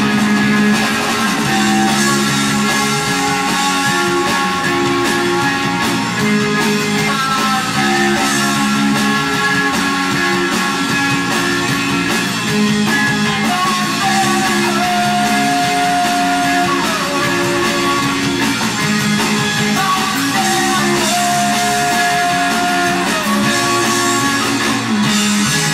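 Rock band playing live: electric guitars, bass guitar and drum kit.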